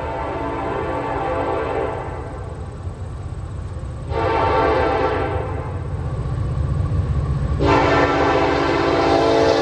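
Nathan K5LLA five-chime air horn on a BNSF SD70ACe locomotive sounding for a grade crossing in long blasts. One blast is already sounding at the start and fades about two seconds in, another comes about four seconds in, and a third starts near the end. Under the blasts runs the low rumble of the approaching train.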